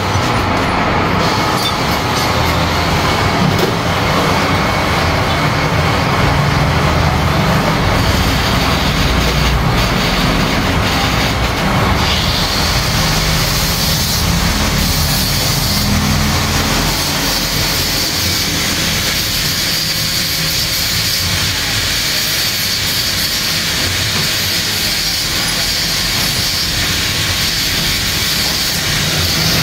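Metal lathe running, its chuck spinning a Yamaha RX King right-side clutch cover while it is turned flat, in a steady mechanical noise. The cover is warped and has been letting engine oil seep. A higher hiss joins about twelve seconds in.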